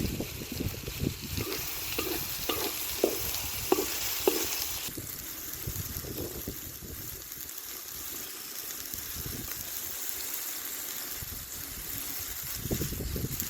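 Food frying and sizzling in a pot, stirred with a spoon that knocks against the pot several times. About five seconds in the sizzle quietens and the stirring pauses, then resumes near the end.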